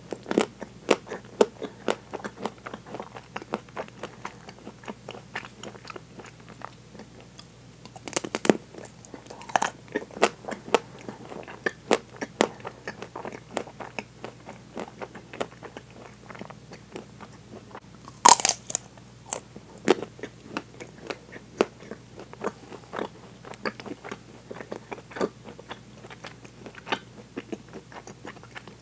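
Biting and chewing chocolate-coated ice cream bars with a crunchy nut coating, close to a clip-on microphone: the hard chocolate shell cracks in two loud bites about eight and eighteen seconds in, with steady crisp crunching in between.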